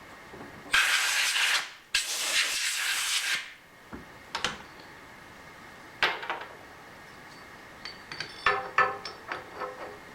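Two loud hissing blasts, each a second or so long, then a couple of sharp knocks and a run of ringing metal clinks and clanks as steel toe-clamp hardware is handled on the mill.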